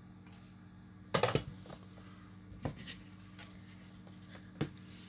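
A few small knocks and clatters of hand tools being picked up and handled on a workbench, the loudest about a second in, over a faint steady hum.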